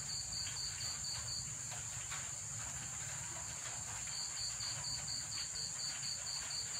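Insects chirping: a steady high-pitched trill, with a second insect pulsing in an even rhythm of about six chirps a second. The pulsing stops for a couple of seconds early on and starts again about four seconds in. A low steady hum lies underneath.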